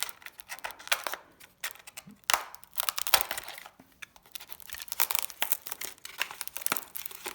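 A taped cardboard box being cut open with a blade: tape and cardboard tearing and crinkling in irregular scrapes and clicks.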